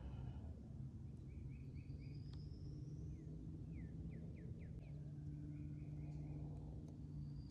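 Songbirds singing faintly at dawn: a couple of thin rising whistles, short trills and a quick run of falling chirps about halfway through, over a steady low hum.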